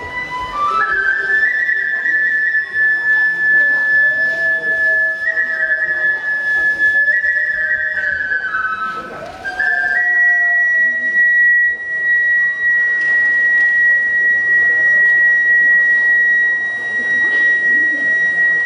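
Kagura bamboo flute (fue) playing a high melody that steps up and down, then holding one long high note from about halfway on. A fainter, lower wavering tone runs underneath.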